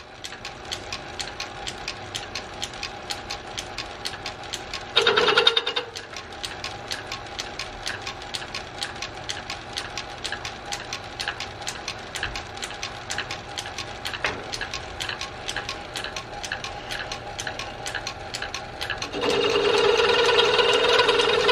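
Small metal lathe running, with a steady rapid ticking from its drive and a faint hum. About five seconds in the cutting tool briefly bites into the drill bit's Morse taper shank with a louder ringing sound, and from about nineteen seconds it cuts steadily and louder.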